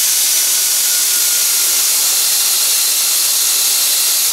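Pneumatic air ratchet running on a nut: a loud, even hiss of exhaust air with a faint motor whine, stopping near the end.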